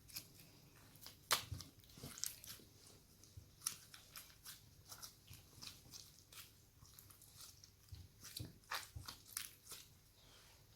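Sticky slime being kneaded and squished together by hand, giving faint, irregular little clicks and wet pops.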